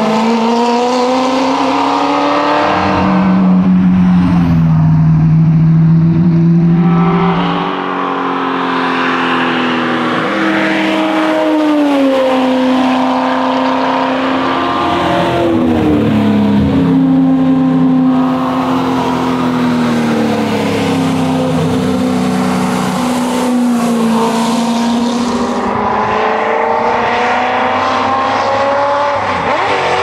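1965 Ford Shelby GT350's 289 V8 engine driven hard, the revs climbing and falling back again and again as it shifts gears and slows for corners.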